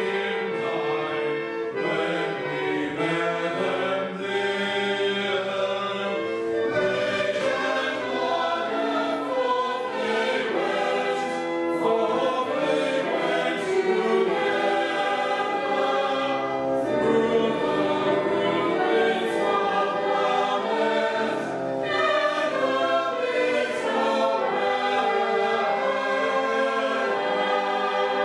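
A small mixed choir singing a Christmas carol, several voices together in harmony.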